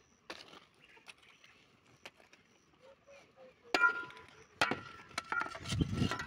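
Metal shovel striking and scraping dry soil, with light chops early on and two sharp clanks about four seconds in that ring briefly. Near the end comes a low rumble.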